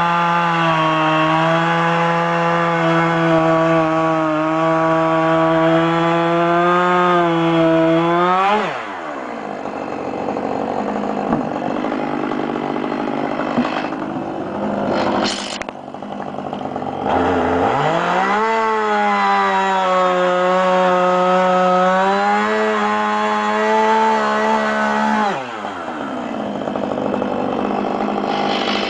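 Husqvarna 555 two-stroke chainsaw running at full throttle for about eight seconds, then dropping off suddenly. It comes back up to full throttle about halfway through, holds for another eight seconds, and drops off again.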